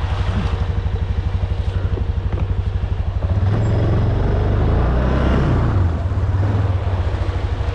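ATV engine running while the machine is driven, a rapid low pulsing at first. About three seconds in it revs up and runs louder and steadier, working harder, with some rattle and clatter over the top.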